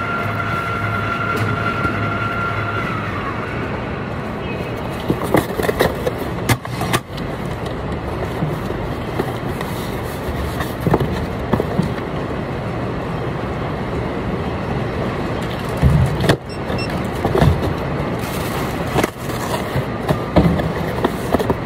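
Steady mechanical rumble of warehouse machinery at a packing station, with a steady high whine that stops about three seconds in. Scattered knocks and rustles come from a cardboard box and a plastic-wrapped package being handled and packed.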